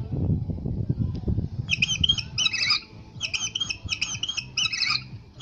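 An animatronic Oviraptor's loudspeaker playing a dinosaur call: a run of short, high, chirping squawks repeated in bursts, starting about two seconds in. Before them there is a low rumble for about the first second and a half.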